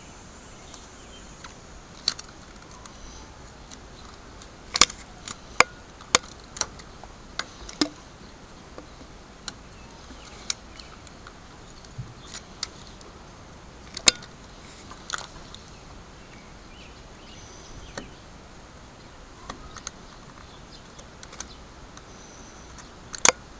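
Utility-knife razor blade cutting and shaving wood from a walking stick: irregular sharp clicks and snicks as the blade bites in and chips come off, a dozen or more spread out, some louder than others.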